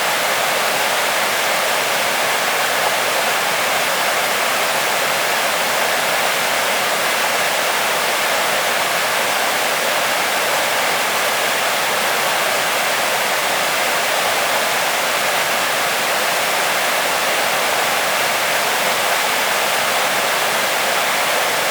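Králický waterfall: a steady, unbroken rush of falling water, mostly a high hiss with little low rumble.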